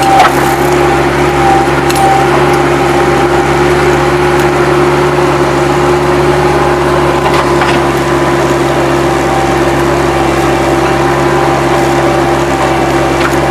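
Bobcat 763 skid-steer loader's diesel engine running steadily under load, with a constant hum and a high steady whine over it.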